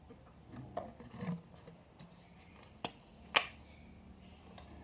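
Slime-making supplies being handled on a table: soft rustling and knocking about a second in, then two sharp clicks about half a second apart, the second the loudest.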